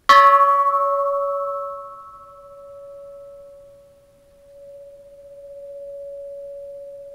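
Light antique Japanese bronze Buddhist bell struck once with its striker, then ringing on with a very long reverberation. The bright upper overtones die away within a second or two while the main tone hums on, slowly swelling and fading.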